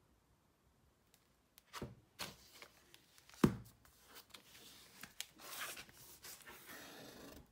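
An old cloth-covered hardback book being handled: paper and cover rustles, then one sharp thump about halfway through as the book is shut, followed by rubbing and rustling as it is turned and slid about. The noise stops abruptly at the end.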